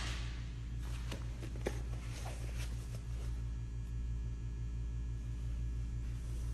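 Unpacking noises: packing material rustling with a few sharp clicks and knocks over the first three seconds as items are lifted out of a box, then quiet handling. A steady low electrical hum runs underneath.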